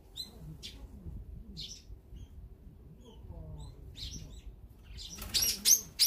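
Brown-eared bulbul calls: a few scattered short calls, then a loud run of repeated, downward-arching calls in the last second.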